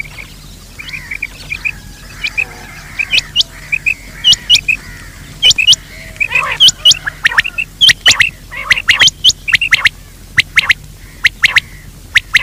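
Recorded gamebird calls used as a hunting lure: soft chirping at first, then from about three seconds in loud, sharp upward-sweeping call notes, mostly in pairs, coming thicker and faster toward the end.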